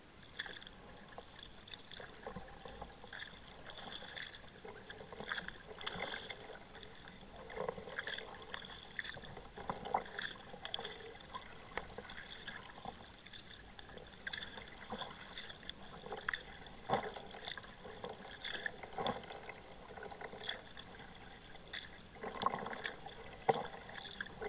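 Kayak paddling on calm water: the paddle blades dip in stroke after stroke, with water dripping and trickling off them between strokes.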